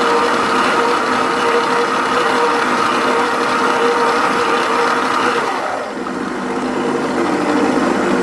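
Electric stand mixer running, its dough hook kneading a soft semolina and flour bread dough in a stainless steel bowl: a steady motor whine. A little past halfway the whine drops to a lower pitch.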